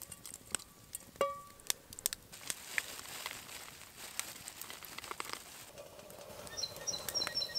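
Scattered light clicks and crackles, with a brief metallic ping about a second in. Near the end a bird chirps in quick, short, high notes.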